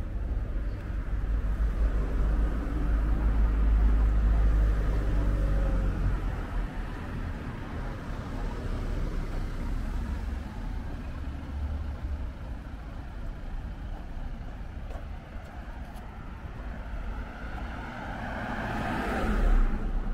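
Road traffic: a vehicle's engine runs close by with a low rumble for the first six seconds or so. Near the end another car passes close, its sound swelling and then falling away.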